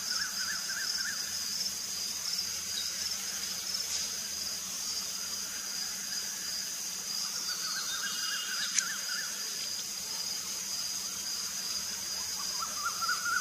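Insects drone steadily in thick vegetation, a high continuous buzz. Under it a lower pulsing call swells in and fades out three times: at the start, around the middle and near the end. A single sharp click comes about nine seconds in.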